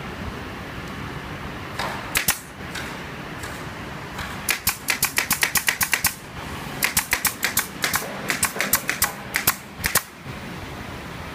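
Pneumatic nailer firing: sharp clicks, two at first and then long runs of about six a second with a short break in the middle, over a steady factory machinery hum.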